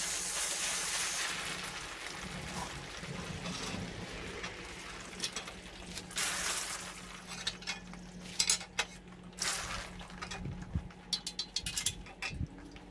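A garden hose sprays water onto a bare cast-iron 5.3 L engine block, a steady hiss that eases off after about two seconds. After that come a run of sharp clicks and clanks as the engine stand's crank handle is turned to rotate the block.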